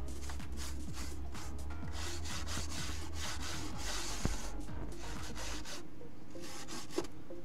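A small hand tool scraping and rasping away model rock facing in quick, repeated back-and-forth strokes, cutting clearance beside the track for a steam locomotive that was hitting the rock. The strokes thin out near the end.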